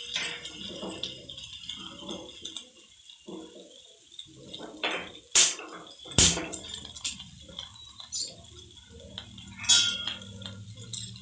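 Stuffed okra shallow-frying in a little oil in a pan, a faint steady sizzle, with a few sharp clinks of a utensil against the pan. The two loudest clinks come a little past the middle, under a second apart.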